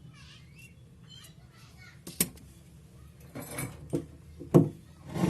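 Several sharp clicks and knocks of tools and parts handled on a repair bench, the loudest about four and a half seconds in, over a low steady hum. Faint chirps near the start.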